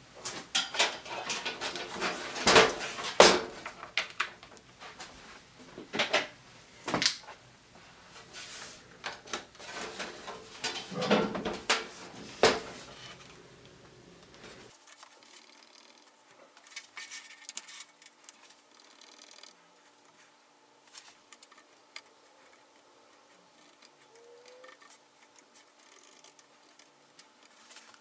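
Handling of a Lenovo ThinkPad X230T laptop: a run of clacks and knocks as it is opened and a plug or USB device is pushed into its side. After about fifteen seconds these give way to scattered light clicks of its keys being pressed while it is tested.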